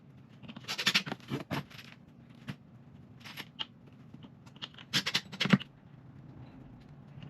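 Small metal hardware, screws and cabinet brackets, handled and set in place, giving clusters of short clicks and rattles about a second in, again near three and a half seconds, and around five seconds.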